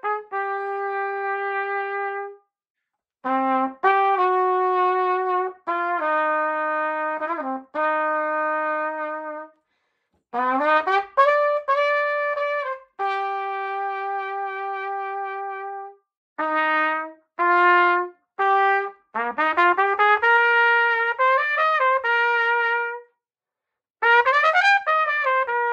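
Adams A4LTS trumpet with a red brass bell played solo and unaccompanied: a melody in phrases of long held notes and quick rising runs, with short breaths between phrases.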